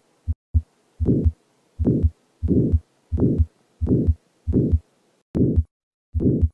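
Auscultated heartbeat of a patient with aortic valve sclerosis: each beat carries a short systolic murmur that peaks early in systole, between the first and second heart sounds. After a couple of faint clicks in the first second, the beats come steadily, a little more than one a second.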